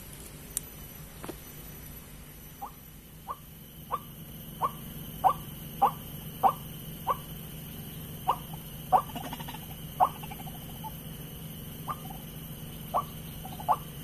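White-breasted waterhen calls played as a trapping lure: short, sharp notes repeated about one and a half times a second, with a brief pause near the end, over a steady low hum.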